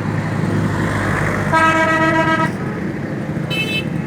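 A vehicle horn honks once for about a second, and a shorter, shriller toot sounds near the end. Both play over a steady engine running.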